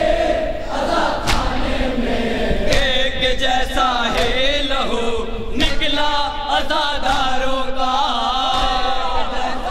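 A chorus of men chanting a nauha (Shia mourning lament) led by a reciter at the microphone, with rhythmic chest-beating (matam) strikes landing about every second and a half.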